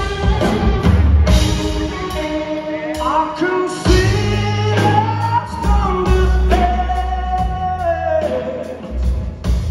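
Live rock band playing: a lead singer over acoustic and electric guitars and drums, heard from within the crowd in a concert hall.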